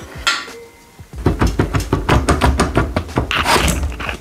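Metal rattling and clicking as an engine cradle and its roller drive chain are shifted by hand: a few clicks, then from about a second in a rapid, uneven rattle over a low rumble.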